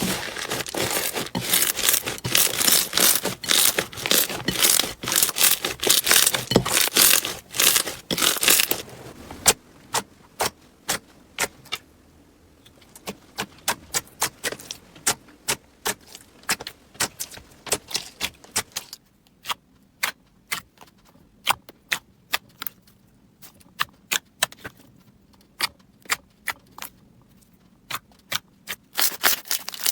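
Slime being squeezed and worked by hand: a dense run of crackling and popping for about the first nine seconds, then scattered single clicks and pops.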